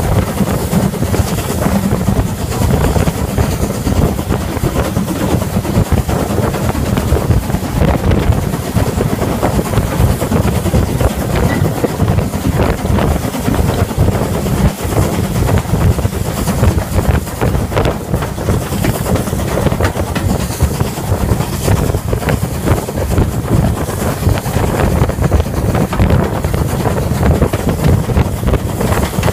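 Ivatt class 4MT 2-6-0 steam locomotive working a train along the line, heard from just behind its tender: a loud, steady run of engine, wheel and rail noise with wind buffeting the microphone.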